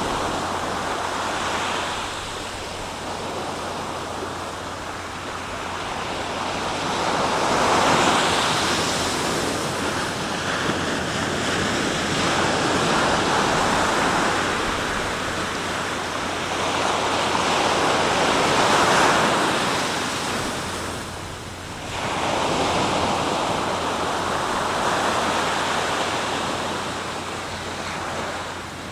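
Sea waves breaking and washing ashore: a continuous surf that swells and eases every few seconds, with a brief lull about two-thirds of the way through.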